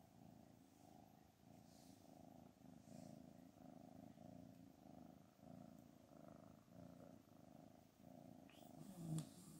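Black cat purring softly while being stroked, in a steady rhythm of about three breaths every two seconds. A brief louder sound comes near the end.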